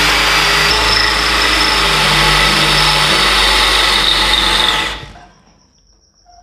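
Bosch GSB 180 Li 18V cordless impact drill running under load, an 8 mm bit cutting through 14-gauge iron sheet with a steady motor whine and grinding. The drill stops about five seconds in, its motor winding down.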